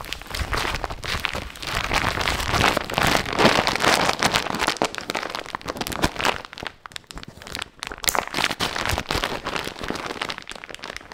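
Dyneema dry bag crinkling and rustling as it is handled and folded closed, the stiff fabric giving a dense crackle. The handling thins out for a couple of seconds past the middle, then picks up again.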